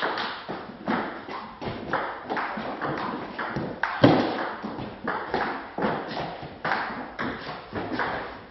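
Table tennis rally: the ball clicks sharply off the bats and the table in a quick, irregular string of taps, with one louder thud about four seconds in.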